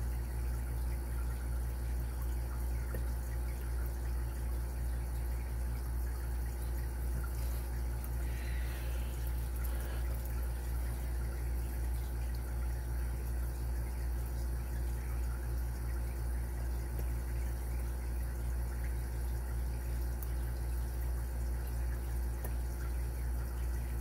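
Faint scraping and light clicks of a lock pick working the pins of a Carbine padlock held in a vise, under a steady low hum that is the loudest sound.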